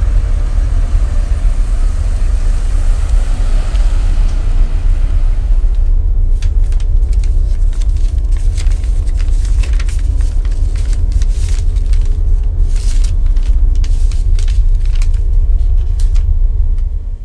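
Loud, deep bass rumble of a film soundtrack, under a rising hiss for the first few seconds. From about six seconds in, a quick, irregular run of sharp clicks and ticks sounds over the rumble, and everything fades out at the end.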